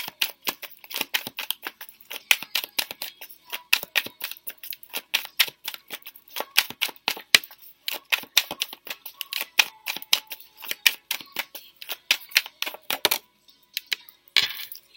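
Tarot deck being shuffled by hand: a rapid, uneven run of card clicks and slaps, several a second, that stops about thirteen seconds in.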